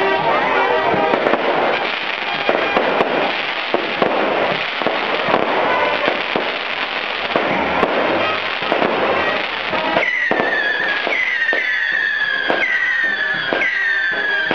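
Fireworks going off in dense crackling volleys, with many sharp pops and bangs. About ten seconds in, a series of falling whistles begins, repeating a little under once a second.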